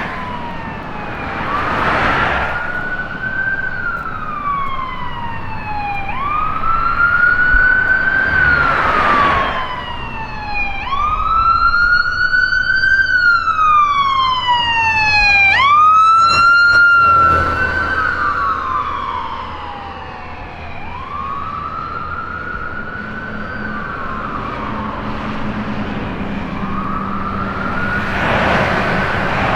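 Ambulance siren on wail, its tone rising and falling slowly about every five seconds, over the sound of the vehicle on the road. It grows louder toward the middle as the ambulance comes close, then fades and drops in pitch as it moves away.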